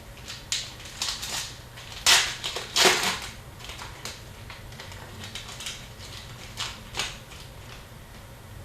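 Hockey trading cards being handled and flipped through: a scattering of light clicks and rustles, with two louder rustling slides about two and three seconds in.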